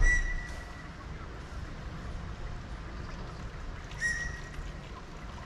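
Canal-side city ambience with a steady low rumble. A low thump comes at the very start. Two short high ringing tones sound, one just after the start and one about four seconds in.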